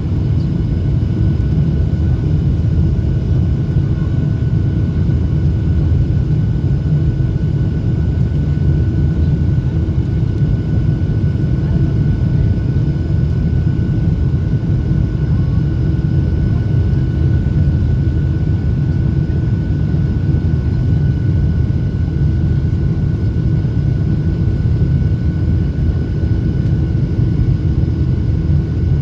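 Cabin noise of a Boeing 737-800 in flight: a steady, loud rumble from the CFM56-7B turbofan engines and airflow, with a few steady whining tones on top.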